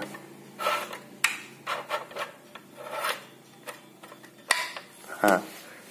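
Etona heavy-duty stapler being loaded: a strip of metal staples and the plastic-and-metal magazine rub and click as the staples are set in the channel and the magazine is pushed back in. There are a few scattered clicks and scrapes, the sharpest near the end.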